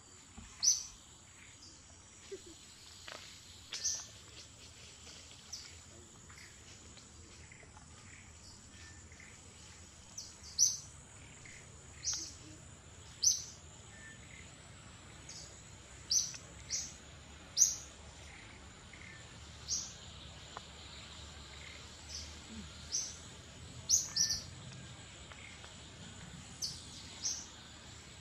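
Birds chirping in the forest: an irregular series of short, sharp, high chirps, each falling quickly in pitch, over a steady high insect drone.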